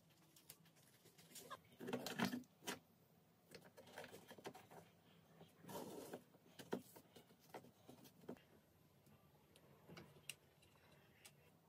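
Faint, irregular taps and clicks of small objects being handled, with brief louder scuffs about two and six seconds in.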